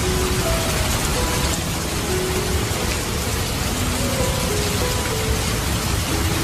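Steady rain falling and splashing on the garden surfaces. A soft melody of slow single notes plays faintly over it.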